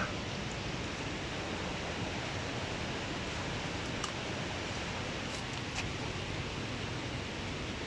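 Steady rush of a small river's water running over rocks, with a few faint clicks near the middle.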